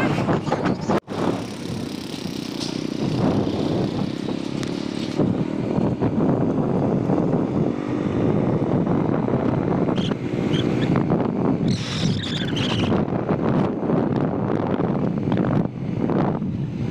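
A vehicle moving along a road: engine and road noise mixed with wind buffeting the microphone, with a brief dropout about a second in.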